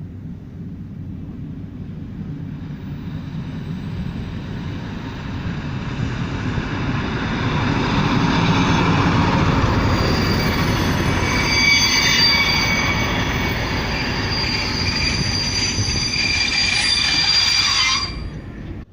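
Passenger train coming into the station, growing louder over several seconds. From about eight seconds in there is a high metallic wheel squeal over the rumble. The sound cuts off abruptly near the end.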